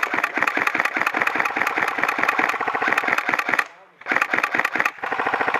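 Airsoft gun firing full-auto in rapid, even strings of shots: one long burst of about four seconds, a short pause, then two more bursts.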